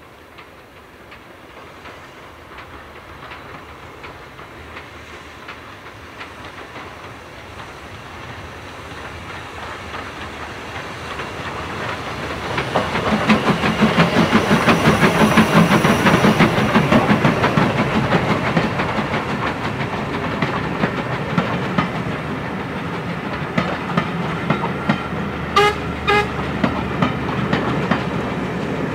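Hunslet Austerity 0-6-0 steam locomotive approaching and passing under steam, its exhaust beats and running gear growing louder to a peak about halfway through. Its coaches then roll past with a steady clickety-clack of wheels over rail joints. Two short pitched toots sound about three seconds before the end.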